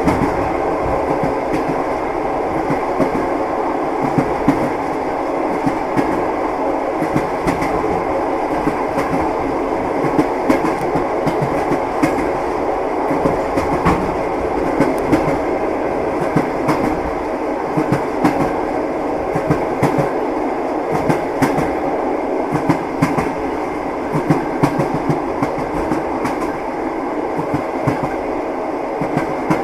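Train wheels clacking over rail joints, a steady rumble of a moving train with repeated clicks.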